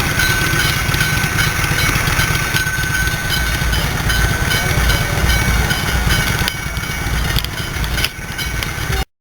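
An engine running steadily with a low rumble and a thin steady whine above it; the sound cuts off abruptly near the end.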